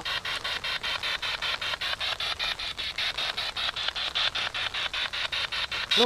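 Spirit box sweeping through radio stations: rapid, evenly spaced chopped bursts of static, about seven a second, with no voice coming through.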